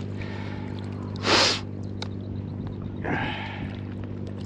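Steady hum of a small boat motor. A short, loud hiss cuts in about a second in, and a softer rush follows near three seconds.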